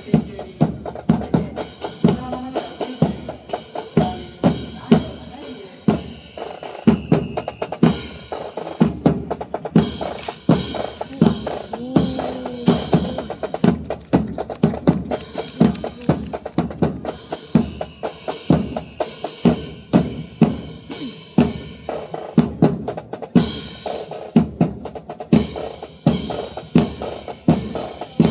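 Marching snare and bass drums playing a fast, continuous drum cadence, many sharp strikes a second with the deeper drum hits ringing underneath.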